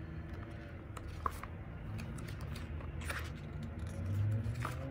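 Pages of a glossy album photobook being turned by hand: a few short paper rustles and flicks over a low steady hum.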